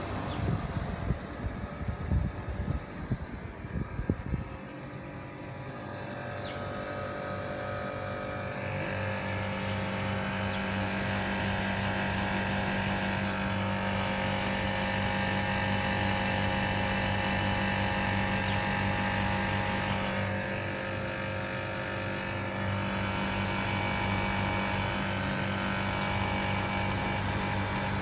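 Outdoor condenser unit of a Carrier split-type air conditioner running: a steady electrical hum with a fan's whoosh, growing a little louder over the first several seconds. A few irregular knocks and bumps come in the first four or five seconds.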